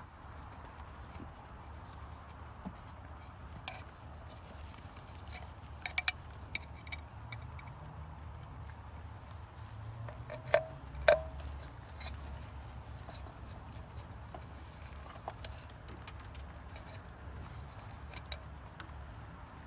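Scattered light clicks of tools and parts being handled, with two sharper metallic clinks that ring briefly about ten and eleven seconds in, over a low steady hum.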